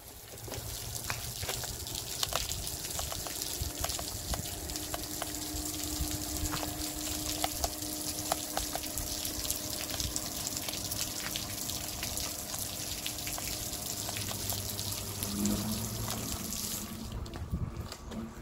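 Many thin water jets from a submersible utility pump driving a homemade PVC bottle-washer manifold, spraying about 12 feet up and falling back as spray onto pavement and grass: a steady hiss of water with scattered drops hitting. It stops about a second before the end.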